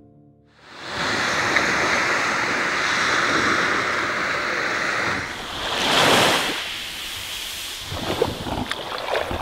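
Surf washing onto a sandy beach as a steady rush of water. One wave breaks louder about six seconds in, then the wash eases.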